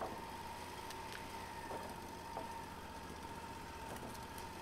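Wood-Mizer portable band sawmill running steadily and faintly, with a steady whine and a few light clicks.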